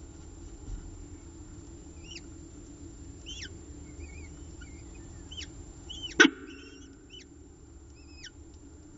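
Short, high, scattered chirps from downy peregrine falcon chicks (eyases) as the adult feeds them torn-off pieces of prey, over a steady low hum. A single loud, sharp click comes about six seconds in.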